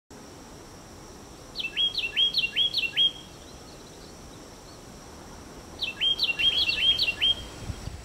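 Carolina wren singing: two bouts of its loud, rolling song, each made of about four quick repeated phrases, with a pause of a few seconds between them, over a steady background hiss.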